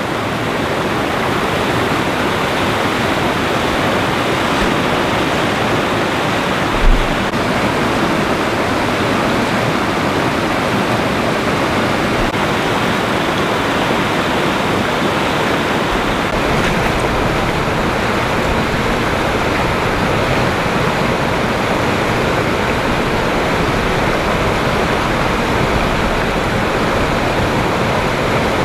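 River water rushing over rocky ledges and small rapids, a steady, even rushing noise, with one brief low thump about seven seconds in.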